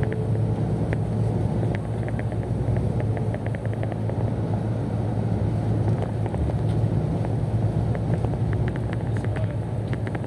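Steady low rumble and hum of a road vehicle driving along, with engine and tyre noise. Faint light clicks or rattles come and go now and then.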